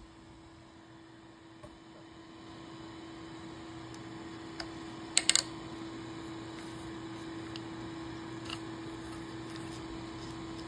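Electric saw-chain grinder running idle with a steady hum, its wheel spinning clear of the chain. The steel chain is pulled along by hand to the next cutter, giving a few light clicks and a short metallic rattle about five seconds in.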